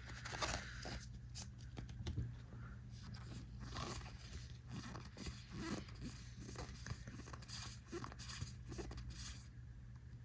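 Faint handling noises of trading cards and a booster-pack wrapper: small irregular rustles, scrapes and ticks as the cards are slid and flipped by hand.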